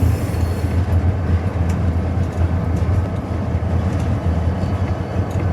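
EMD SD40-2 diesel locomotive's 16-cylinder two-stroke engine running in throttle notch 1, a steady low rumble heard inside the cab. A brief hiss near the start.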